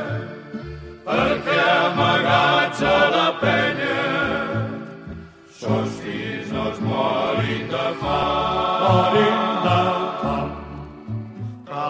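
A havanera song: several voices singing together over a low, rhythmic bass accompaniment.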